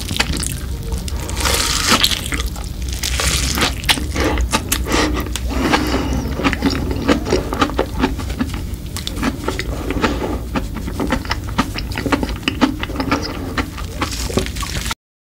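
Close-miked eating of a red crumb-coated fried snack with cheese sauce: crisp crunching and many small crackles mixed with wet, squishy chewing sounds.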